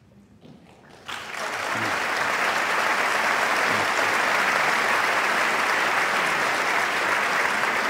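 A large audience applauding: clapping breaks out about a second in, swells quickly and holds at a steady level.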